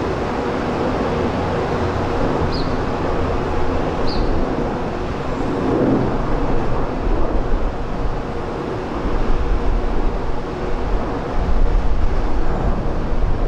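Jet airliner engine noise, a steady broad rush with faint steady tones in the first half. A fluctuating low rumble grows in the second half, like wind buffeting the microphone.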